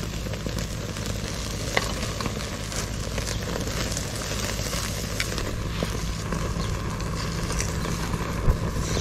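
Ribeye steaks sizzling over flaring charcoal on a small kettle grill, with scattered small crackles and pops from the fire. A single sharp knock near the end.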